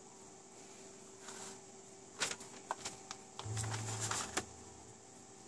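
Bench power supply being switched on: a few sharp clicks and knocks from switching and handling, then a low hum for about a second that ends with a click.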